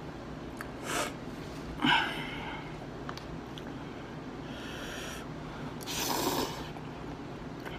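A person eating spicy cup noodles: a few short sniffs and breaths through a runny nose, then a louder slurp of noodles about six seconds in.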